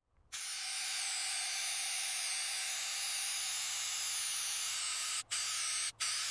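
Steady high-pitched hiss, like a spray, starting abruptly a moment in and broken by two brief dropouts near the end.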